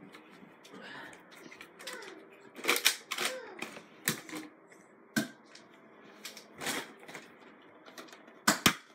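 Irregular sharp plastic clicks and knocks from toy Nerf dart blasters being worked and fired, loudest in a cluster about three seconds in and a double click near the end, with faint voices now and then.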